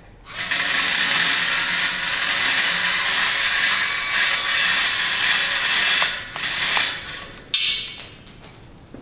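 Power tool with a socket on a long extension, spinning off the nut that holds the connecting rod on the air compressor's motor shaft. It runs steadily for about six seconds, then in a few short bursts.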